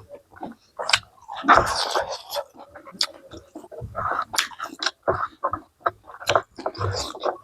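Close-miked chewing and mouth sounds of someone eating chicken and rice, with irregular wet clicks and smacks.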